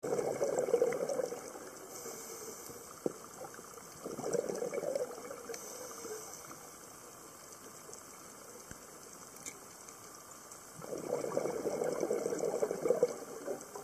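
Underwater: a scuba diver's exhaled breath bubbling out of the regulator in three bursts of a second or two each, over a steady faint hiss with a few sharp clicks in between.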